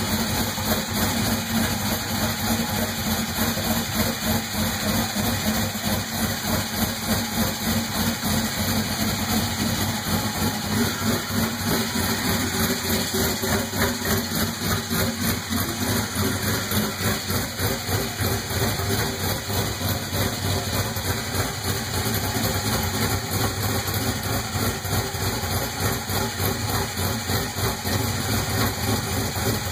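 Twin-turbo Ford 4.6 two-valve V8 with MMR Stage 3 turbo cams idling steadily, its exhaust note pulsing in a quick, even rhythm with no revving.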